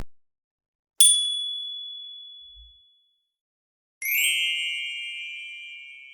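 Two bell sound effects. About a second in comes a single clear, high ding that rings out over roughly two seconds. About four seconds in comes a richer bell strike with several tones together, ringing out slowly.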